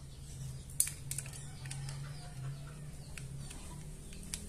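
A few light, sharp metal clicks and taps as parts are handled on the open crankcase of a Yamaha NMAX scooter engine during reassembly, over a steady low hum.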